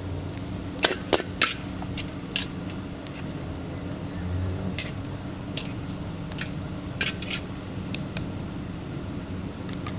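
Metal spatula knocking and scraping against a wok at irregular intervals, about a dozen sharp strikes, over a steady low machine hum.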